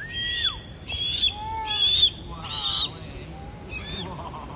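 Harris hawk calling: five harsh, screechy calls spaced roughly a second apart, with a short whistle that rises and falls right at the start.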